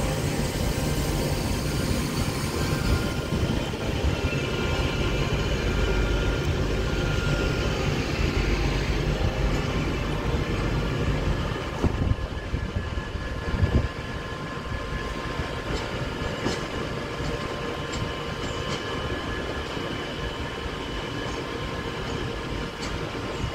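Class 323 electric multiple unit trains running along a station platform: a steady rumble of wheels and traction equipment with high whining tones over it. The sound drops somewhat about twelve seconds in, and a few sharp clicks follow.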